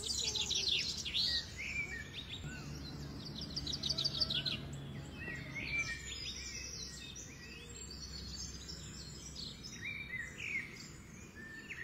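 Several birds chirping and calling at once, with quick trills and short rising and falling notes, over a steady low background rumble.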